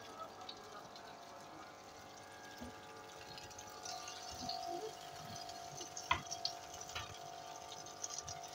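Chopped tomatoes sizzling softly in oil in a frying pan as they begin to give off their juice, with a spatula stirring through them and knocking against the pan a few times, sharpest about six and seven seconds in.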